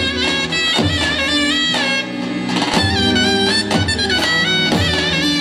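Instrumental Zeybek folk music: a bending melody line over a slow, heavy drum beat, with a drum stroke about once a second.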